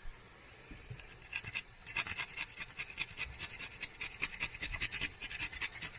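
Garlic cloves grated on a metal box grater: rapid rasping strokes, several a second, starting about a second in.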